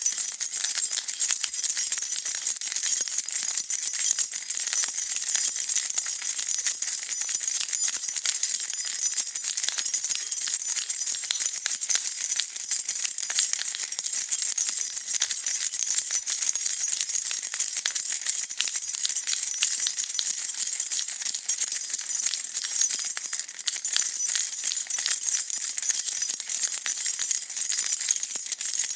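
A bunch of metal keys being shaken and jingled continuously, a dense, bright, high-pitched jangle at an even level.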